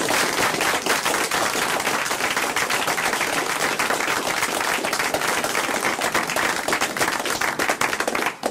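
Live audience applauding: dense, steady clapping from many hands.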